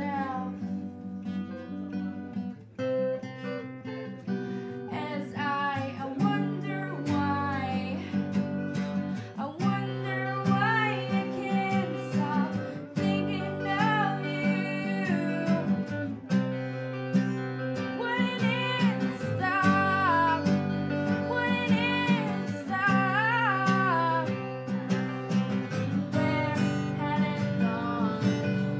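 Two acoustic guitars played together, strummed and picked, with a woman singing a melody over them.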